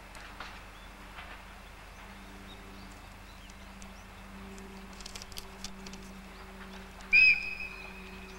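A standing electric locomotive hums steadily. A second, higher hum joins about four seconds in, with a few faint clicks. Near the end comes one short, sharp high whistle blast, the loudest sound, which rings on faintly.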